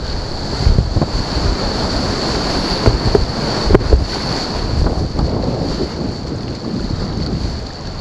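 Whitewater rushing and splashing around a slalom kayak in a concrete rapids channel, with wind buffeting the microphone in low, uneven rumbles. A single sharp knock comes about four seconds in.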